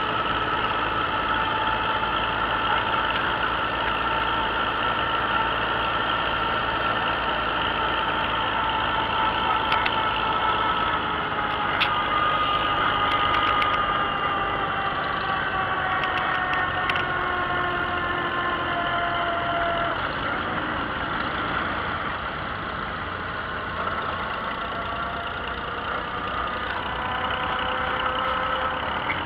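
Vintage farm tractor engine running steadily under way, heard from on board; its note sags a little in pitch through the middle. A few sharp knocks about twelve to fourteen seconds in come from a hand handling the mounted camera.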